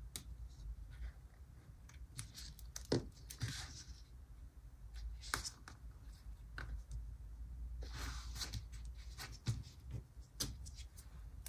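Washi tape being handled and torn by hand: faint scattered rustles and small clicks, with several short scratchy tearing sounds.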